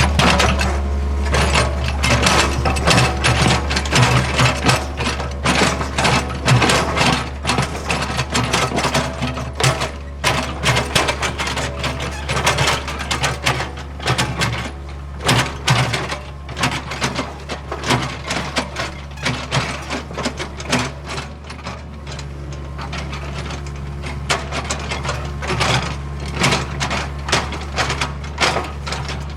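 Hitachi ZAXIS75UR compact excavator grading a dirt road: its diesel engine runs with a steady low hum under dense, irregular clanks and knocks as it works the ground. The clatter eases off for a few seconds past the middle, then picks up again.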